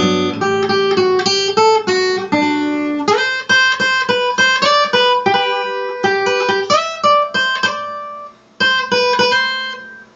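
Acoustic guitar played solo: a picked instrumental introduction, individual notes plucked in quick succession, with a short break about eight and a half seconds in.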